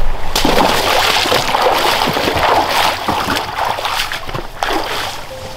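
Boots wading through a shallow stream, water splashing and sloshing around the legs with each step, for several seconds.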